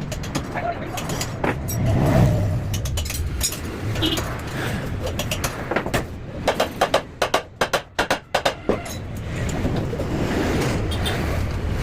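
Steady low vehicle rumble, with a quick run of about a dozen sharp knocks a little past the middle.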